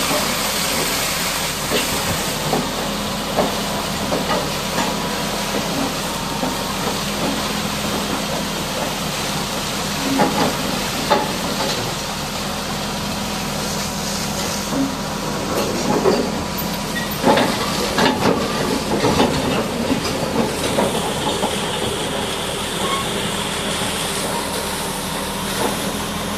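High-pressure water jet hissing steadily as it washes down a Caterpillar D6R bulldozer, with a steady low hum underneath and scattered splashes and knocks about halfway through.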